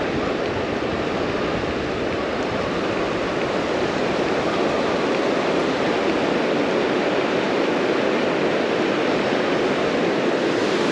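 Ocean surf breaking and washing up a sandy beach in a steady, even rush.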